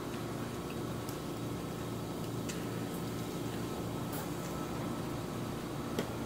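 Steady low background hum with a few faint clicks of a metal fork against a salad bowl and dressing cup, the sharpest about six seconds in.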